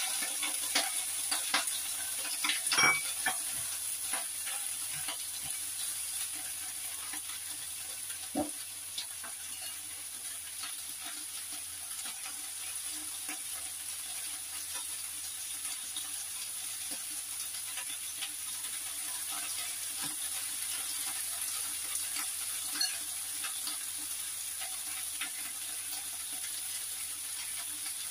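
Vegetables sizzling in hot oil in a steel frying pan, stirred with a spatula, with small clicks of the utensil against the pan. A louder knock comes about three seconds in and another about eight seconds in.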